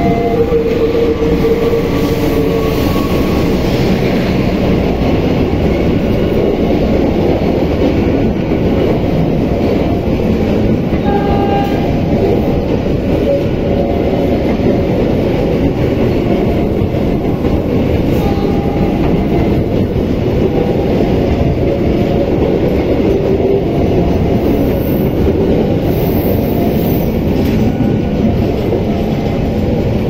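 A diesel-hauled express passenger train passes at close range: the locomotive's horn dies away in the first couple of seconds. Then comes a steady loud rumble and clatter of the coaches' wheels running over the rails.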